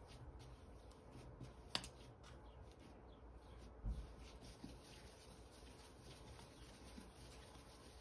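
Near silence with faint rubbing and patting of hands folding and shaping a ball of bread dough on a floured glass worktop. A sharp click comes about two seconds in and a low thump about four seconds in.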